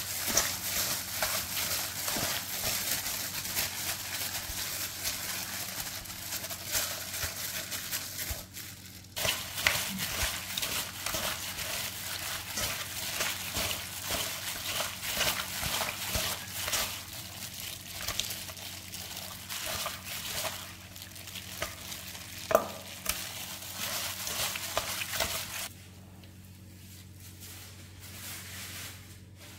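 Pork pieces being mixed by a gloved hand in marinade in a metal bowl: a steady run of wet squishing and small clicks. There is a short pause about a third of the way in, and one sharper click about three-quarters through. The mixing stops near the end.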